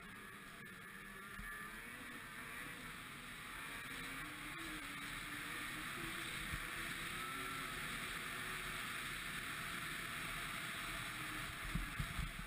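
Ski-Doo MXZ 600 XRS snowmobile engine running under way, its pitch wavering up and down and slowly getting louder. A few low thumps near the end.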